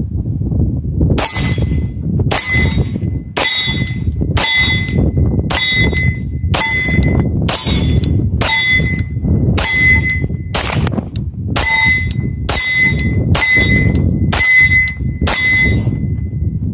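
SIG P226 Legion pistol fired at a slow, steady pace, about fourteen shots roughly a second apart, each followed by the clear ring of a struck steel plate target. Wind buffets the microphone throughout.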